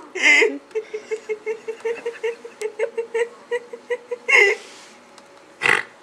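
A person laughing: an outburst, then a run of short low laughing pulses at about five a second, then two more outbursts near the end.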